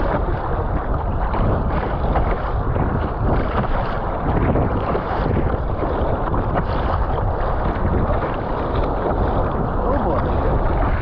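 Lake water rushing and splashing along the hull of an Epic V7 surfski running with the waves, mixed with the paddle blades splashing in on each stroke and wind buffeting the microphone. The sound is a steady, loud rush with no breaks.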